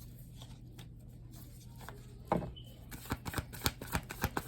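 Tarot cards being handled: quiet at first, then a sharp tap about halfway through and a run of quick card clicks and flicks, several a second.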